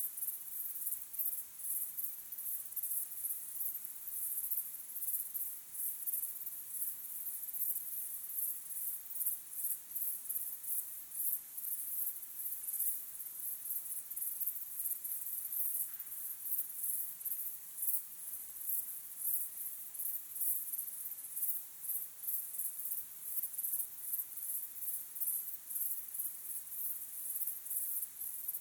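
Crickets chirping in a steady, high-pitched chorus that pulses a few times a second.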